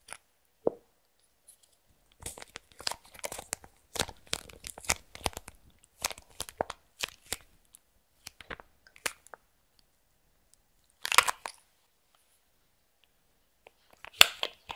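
Slime being worked by hand, crackling and clicking as air pockets in it pop. The clicks come in a dense run for several seconds, thin out, then return in two louder bursts, one about two-thirds of the way in and one near the end.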